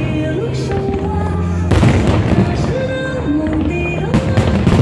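Aerial fireworks shells bursting overhead in clusters of sharp cracks and bangs, loudest about two seconds in and again just after four seconds, with music playing underneath.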